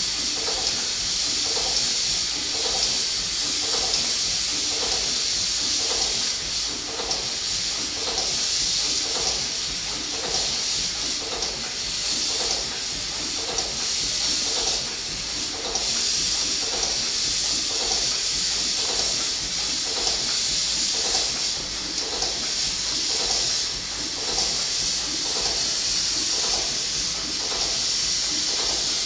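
1923 R. Wolf steam engine running steadily, with a constant hiss and an even, rhythmic chuff of just under two beats a second.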